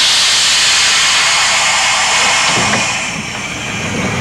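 Vintage electric trolley car giving off a loud rushing hiss that starts suddenly and slowly fades over about three seconds, with a low rumble coming in near the end.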